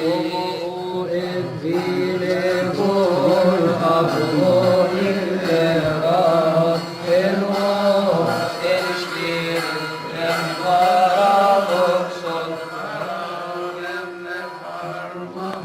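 Coptic liturgical hymn chanted by a male voice in a long melismatic passage, one vowel drawn out over slowly rising and falling notes with no words. A steady low tone is held underneath.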